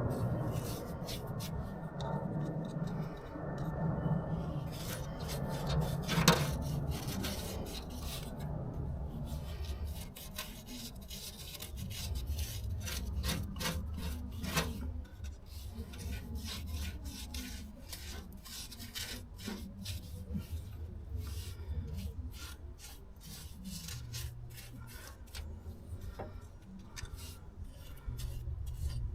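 Hand wire brush scrubbing rusty welded steel in a wheel arch, in many quick, irregular scratching strokes, cleaning the metal back before rust treatment.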